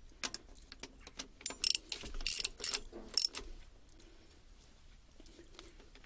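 Ratchet wrench clicking in short bursts as the bias plate bolts are tightened to about 18 foot-pounds, with the loudest bursts in the first half and only a few faint clicks after.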